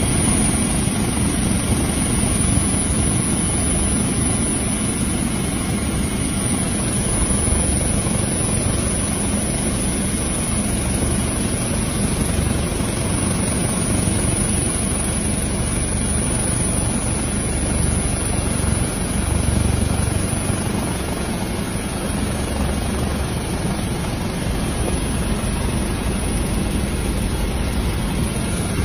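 Steady helicopter engine and rotor noise throughout.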